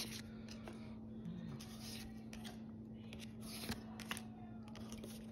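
Stiff board-game cards being flipped and slid over one another in the hand: scattered soft clicks and rustles over a low steady hum.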